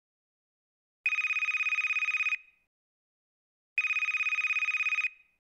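A phone ringing twice: two rapid trilling rings of about a second and a half each, with a pause of over a second between them.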